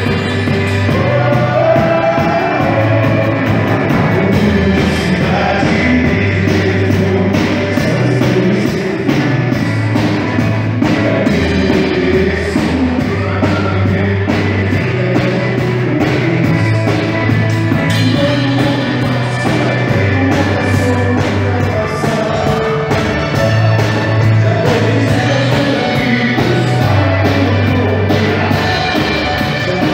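Live band playing a pop song: a singer over drum kit and a bass line, with a steady beat.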